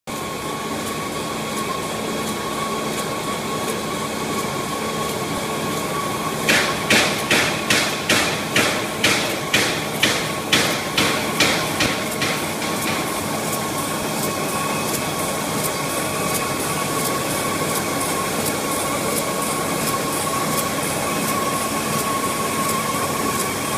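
Envelope window patching machine running: a steady mechanical hum with a thin steady whine. From about six to twelve seconds in, a run of sharp, evenly spaced clacks at a little over two a second.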